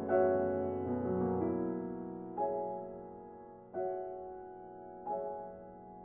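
Slow, gentle piano music: soft chords struck about every second and a half, each left to ring and fade.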